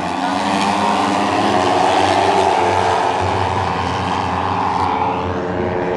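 A pack of J-GP3 racing motorcycles running at high revs through the corners. The overlapping engine notes swell over the first couple of seconds, then ease slightly as the bikes move away.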